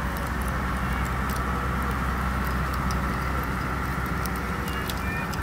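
Steady low outdoor background rumble and hiss, with a faint held tone and a few soft ticks; no clear handling sounds stand out.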